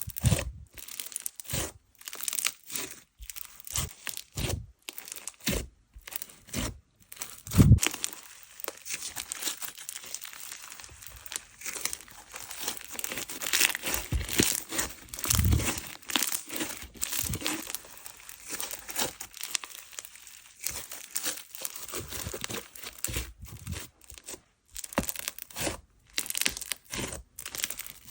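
Slime being squished, stretched and poked by hand: irregular sticky crackles and small pops, with one louder pop about eight seconds in.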